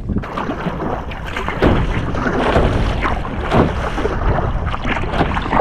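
Kayak paddle strokes splashing through choppy sea water, a loud rushing wash with an irregular splash every second or so, and wind buffeting the microphone.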